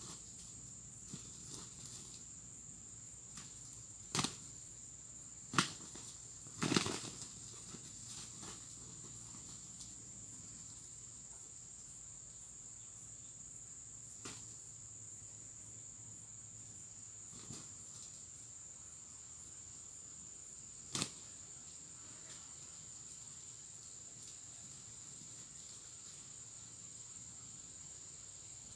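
Junglefowl roosters sparring: a few sharp flurries of wing flaps and strikes, several in quick succession early on and one more about two-thirds through, over a steady high drone of insects.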